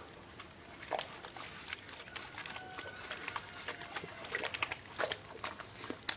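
Cattle dog rooting with its nose in wet mud, making irregular short wet snuffles and squelches.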